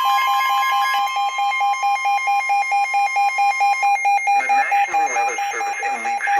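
Weather radios sounding an emergency alert for a severe thunderstorm warning. A steady alert tone drops away about a second in, while another radio keeps up a rapid beep of about five a second. A recorded voice begins reading the warning about four seconds in.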